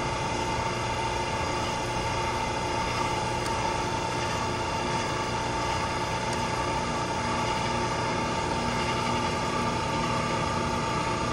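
Steady drone of running chiller plant machinery: a constant whine in the middle range over a low hum, holding even throughout.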